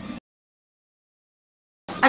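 Dead silence: the sound track cuts out completely for about a second and a half, between the tail of one stretch of speech and the start of the next.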